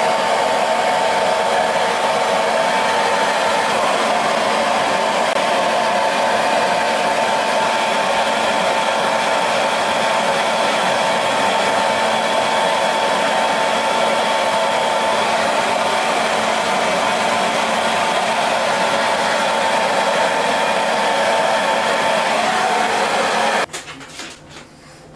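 Electric hair dryer blowing steadily with a constant whine, switched off suddenly near the end.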